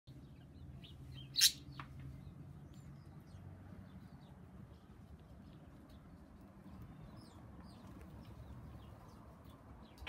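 Small garden birds chirping and tweeting, many short calls scattered throughout, with one much louder sharp sound about one and a half seconds in.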